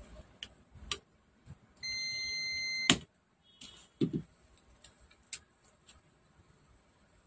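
Digital multimeter's continuity beeper sounding one steady high beep for about a second, cut off by a sharp click, with scattered small clicks and taps of tools and probes on the speaker's plastic housing around it.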